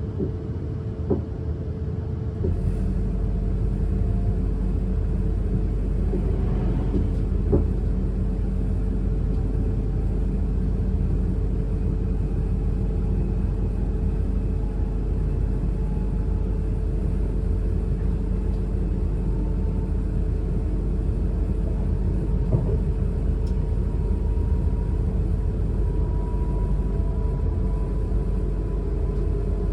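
Siemens Class 444 Desiro electric multiple unit heard from on board, with a steady low rumble that grows stronger about two and a half seconds in. A faint whine from the traction equipment slowly rises in pitch as the train gathers speed, and a few short knocks come from the wheels.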